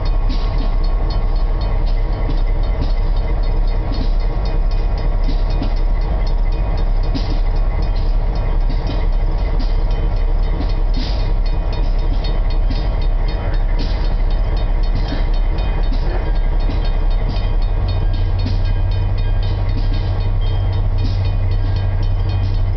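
Diesel freight locomotives rumbling steadily as the train approaches, a deeper hum joining about three-quarters of the way through.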